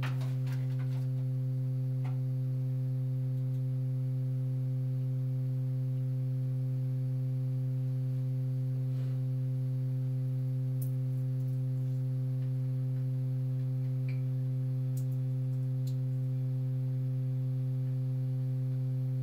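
A steady low tone with overtones, unchanging in pitch or loudness, played through a loudspeaker to vibrate a bowl of water with sand and raise standing ripples on its surface.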